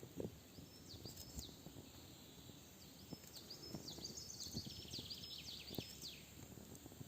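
A small songbird singing a twittering run of short high chirps, with a quick trill near the end of the phrase, over faint scattered low knocks and clicks.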